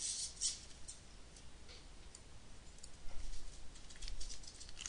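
Scattered light clicks from a computer mouse and keyboard: a few right at the start, then a quick run of them in the last two seconds. A faint low hum runs underneath.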